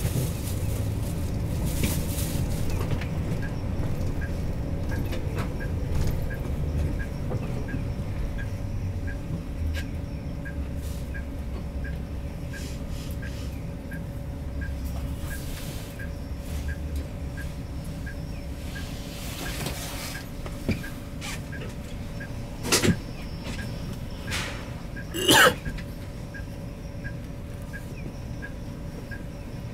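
Hino S'elega HD highway coach heard from inside the cabin, its engine running with a low rumble as it slows in town traffic and comes to a stop. A light tick repeats about once a second, and near the end there are two short, sharp sounds, the second with a brief squeal.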